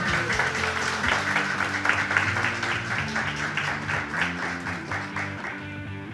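A small group applauding over background music. The clapping fades out near the end.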